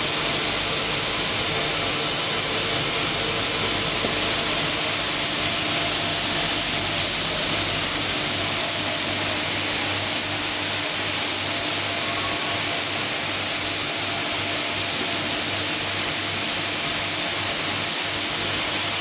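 Plastic recycling pelletizing machine with a 110/80 conical screw extruder running steadily: an even, loud, high hiss over a faint low hum.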